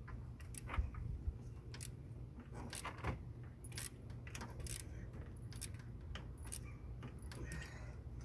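Light metallic clicks and clinks at irregular intervals from a hand wrench being worked on a stuck 11 mm alternator bolt, over a low steady hum.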